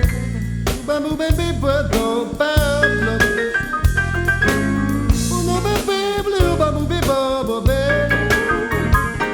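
Blues music: a band with drum kit and steady bass notes under a bending, sliding melody line.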